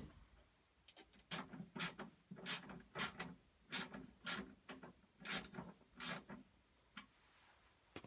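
A series of short rubbing, scraping handling noises, roughly two a second, that stop about a second before the end.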